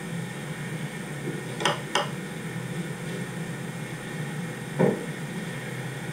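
Steady low hum of indoor room noise with a few knocks: two close together about a second and a half in, and a softer one near five seconds.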